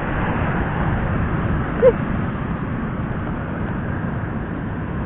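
Sea surf breaking and washing over coastal rocks, a steady rushing noise.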